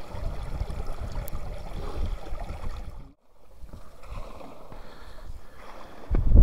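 Lake water running and gurgling through a channel cut in the ice, with wind buffeting the microphone. The sound drops out briefly about three seconds in, and a loud low wind rumble swells near the end.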